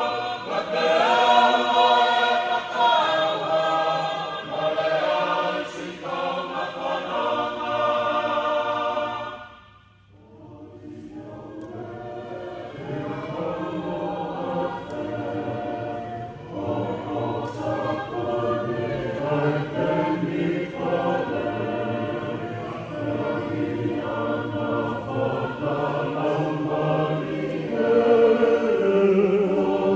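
Tongan choir of men and women singing in parts, holding long chords. About ten seconds in the singing breaks off briefly, then comes back softer and builds, loudest near the end.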